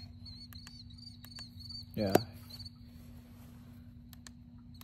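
Crickets chirping in quick, evenly repeated high chirps through the first half, over a steady low hum. About two seconds in, a brief low vocal sound from a man and a sharp click stand out as the loudest moment.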